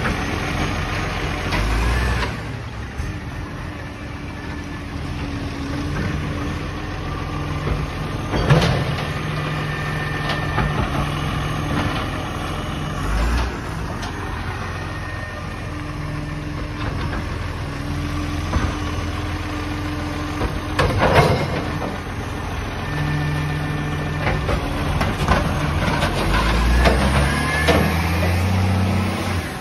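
Side-loading recycling truck's diesel engine idling and revving up while its hydraulic arm lifts and tips wheelie bins. There are sharp clunks about 8 and 21 seconds in as the bins are emptied into the hopper.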